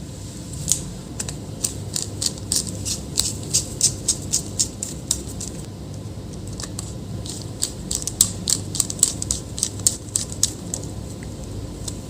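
Sharp, light clicks in quick irregular runs, about two to three a second, in two bursts with a short pause around the middle, over a steady low background noise.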